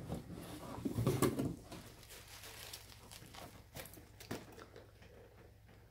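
Rustling of a plush robe and handling of a cardboard box as it is picked up, busiest in the first second or so, then a few light knocks and clicks.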